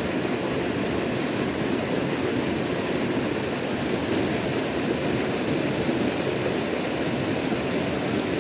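Shallow, rocky river rushing steadily over stones, an even, unbroken noise of flowing water.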